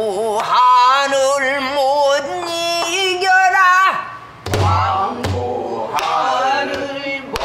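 A female pansori singer sings a danga in long held notes with a wide, wavering vibrato, to a buk barrel drum. The voice breaks off briefly a little past halfway, where two drum strokes fall, then picks up again.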